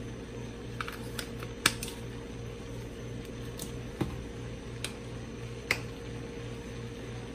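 Scattered sharp clicks and taps of seasoning bottles being handled on the kitchen counter, the loudest a little under two seconds in, over a steady low hum.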